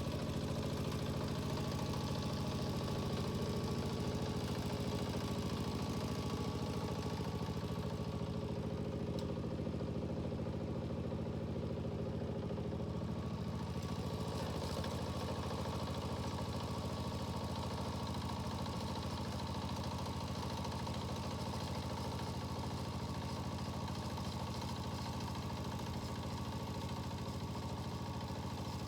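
Yanmar tiller's diesel engine running steadily at a constant speed.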